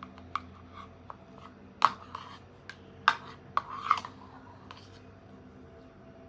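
A spoon knocking and scraping in a bowl of porridge, with a handful of sharp clicks, the loudest about two, three and four seconds in.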